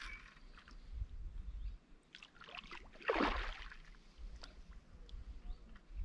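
A hooked fish splashing once at the water's surface about three seconds in as it is played on a feeder rod, with a few small clicks around it, over a low rumble.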